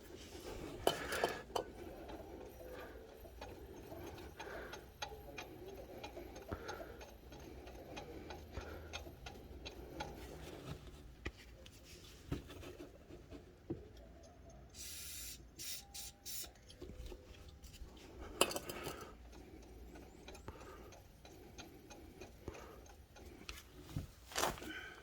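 Small metal clicks and clinks of hand tools working on an engine's drive-belt area, with a short hiss about fifteen seconds in and a couple of louder clatters later.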